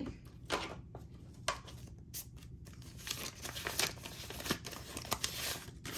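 Paper banknotes rustling and crinkling as stacks of dollar bills are riffled and sorted by hand, in short irregular swishes.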